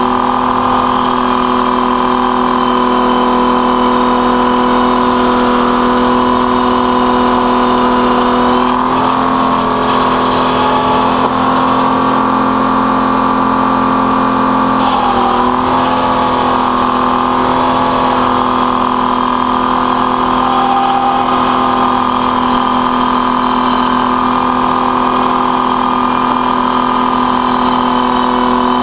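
Circular sawmill running: the large belt-driven head saw spins with a loud, steady hum of several tones while a log is sawn into boards. About nine seconds in the pitch shifts and a hiss joins in, and it cuts off sharply about fifteen seconds in.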